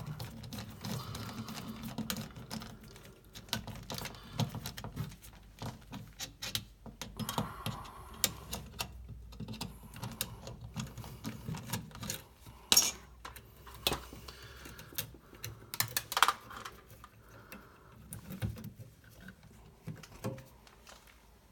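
Screwdriver loosening the terminal screws of a standard duplex electrical receptacle, with scattered small metal clicks and scrapes as the wires are unhooked from the screws. Two sharper clicks stand out in the second half.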